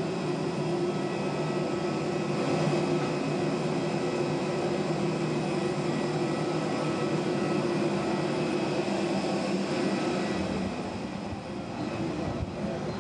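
Steady hum and whine of a parked airliner's running machinery, holding several constant tones, with some low rumbling near the end.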